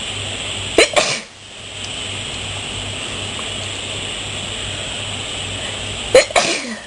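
A person coughing in short, sharp bursts: two quick coughs about a second in and another pair near the end, the last trailing off, from a chest still raw with bronchitis after a cold. A steady hum runs underneath.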